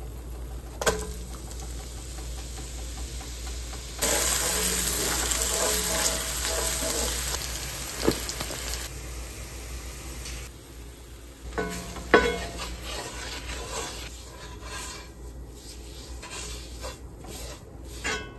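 Diced onions sizzling in foaming butter in a cast iron skillet: a loud hiss starts about four seconds in as they go into the pan, then dies down after a few seconds. A few sharp clinks, and near the end a wooden spoon scraping the skillet as flour is stirred into the onions.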